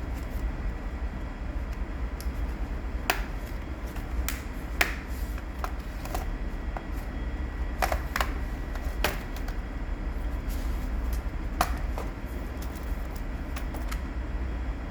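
Irregular sharp clicks and taps from handling a laptop's plastic case and parts during a RAM upgrade, over a steady low hum.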